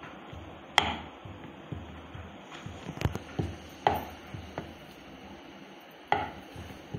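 Wooden rolling pin rolling out dough on a round wooden chapati board, knocking against the board: four sharp wood-on-wood knocks with lighter taps between them.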